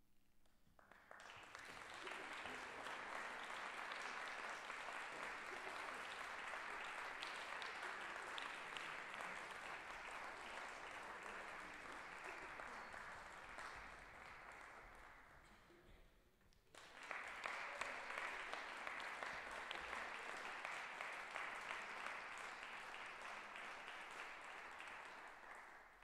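Audience applauding in a concert hall: the applause breaks out about a second in, fades away, then starts up again about two-thirds of the way through.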